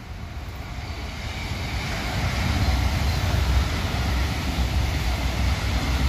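ICE high-speed train passing along the embankment: a rushing noise swells over the first two seconds or so, then holds steady as the carriages go by, over a low rumble.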